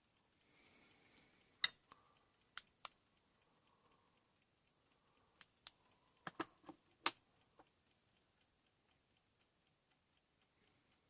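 Computer mouse clicking: a dozen or so sharp, separate clicks in a few quick clusters in the first half, over a faint, regular light ticking.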